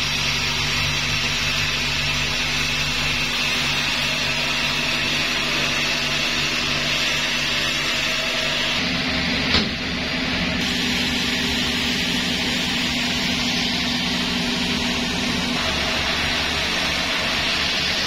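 Sawmill saw and its motor running steadily with a constant hum. About halfway through there is a brief click, and after it the hum sits at a higher pitch.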